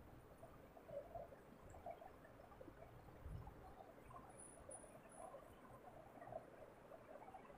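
Faint, irregular rubbing of a cloth duster wiping marker writing off a whiteboard in short strokes.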